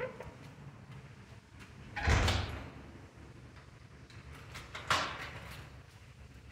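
Two thuds heard through a door security camera's microphone: a heavy, dull thud about two seconds in, then a sharper bang a few seconds later.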